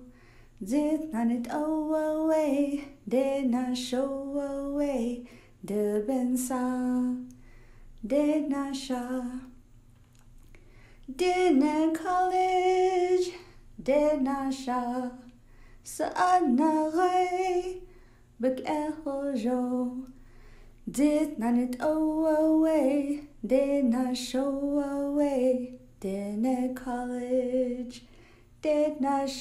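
A single voice singing unaccompanied, in short held phrases separated by brief pauses.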